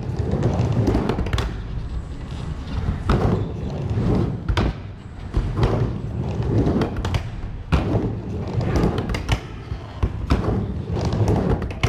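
Skateboard riding back and forth on a half pipe: the wheels rumble up and down the ramp in repeated swells, with sharp knocks and thuds of the trucks and board on the coping and ramp about every second.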